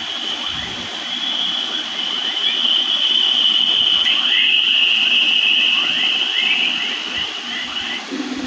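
Space recording played back as sound: a steady hiss under a high, held tone, with a string of short rising chirps. It stops abruptly near the end, where a lower steady hum takes over.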